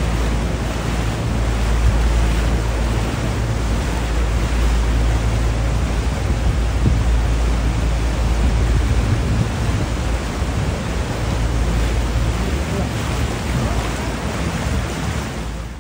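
Steady loud rushing noise with a deep low rumble, cutting off abruptly at the end.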